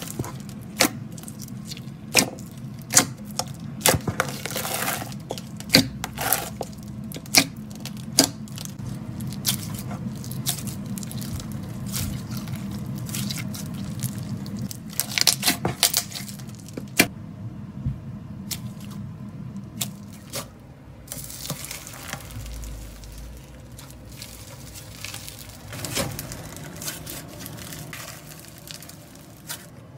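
Hands squeezing and kneading slime: wet squishing with many sharp pops and crackles of air pockets and beads. The pops come thick through the first half and thin out to softer squishing in the second half.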